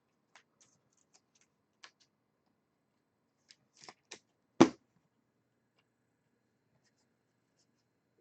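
Baseball trading cards being handled and sorted on a table: sparse faint flicks and clicks of card stock, with one sharp knock about four and a half seconds in.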